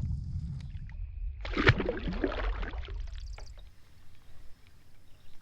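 Water splashing and sloshing at a kayak's side, loudest about a second and a half in, over a low wind rumble on the microphone that dies away after about three and a half seconds.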